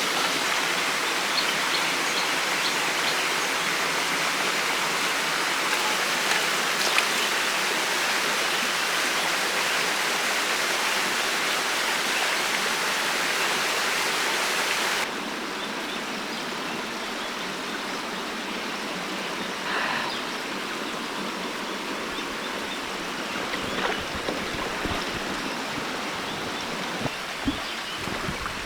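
A small river rushing steadily over rocks and through shallow pockets. About halfway through, the rush suddenly becomes quieter and duller, and a few faint knocks come near the end.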